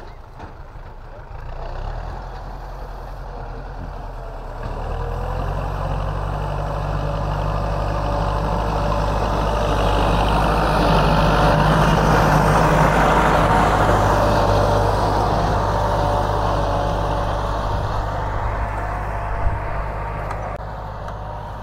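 Kubota L4708 tractor's 47-horsepower diesel engine running steadily under load as it pulls a disc ridger through dry soil. It grows louder as the tractor comes close past, then fades as it moves away.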